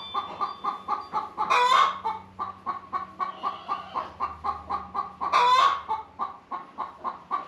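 A flock of chickens clucking, a quick run of short repeated notes, with two louder calls standing out about one and a half and five and a half seconds in.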